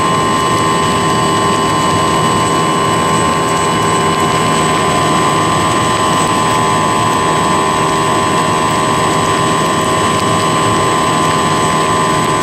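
Radio-controlled flying-wing plane's motor and propeller running at a steady high-pitched whine, heard up close from the camera it carries, over a rush of noise.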